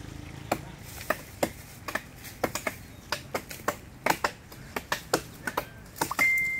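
Sharp, irregular knocks of blades chopping into the branches of a fallen tree, about two or three a second. Near the end a short, steady high tone sounds for under a second.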